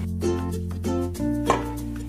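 Background music: a light tune of plucked-string notes over a steady bass line.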